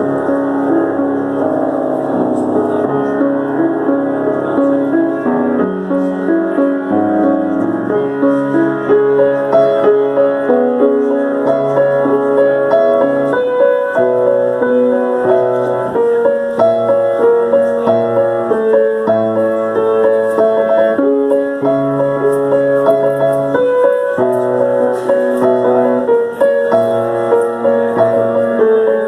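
Piano playing a continuous piece, with a melody over steady bass notes and chords that change about every half second.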